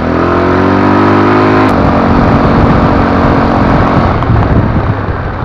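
ATV (quad bike) engine revving up, its pitch rising for about a second and a half, then dropping suddenly and running on, easing off near the end.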